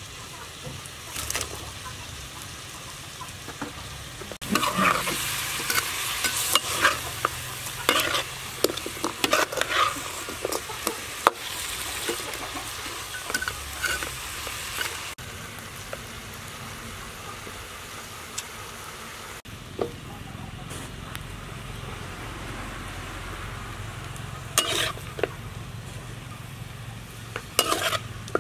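Food sizzling in a metal wok while a metal spatula stirs and scrapes through it, with frequent clinks of the spatula against the wok. The clatter is heaviest in the first half.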